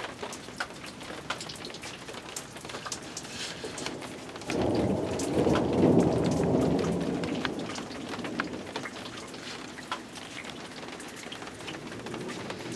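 Steady rain falling, with a roll of thunder that starts suddenly about four and a half seconds in, peaks a second or so later and fades away over several seconds.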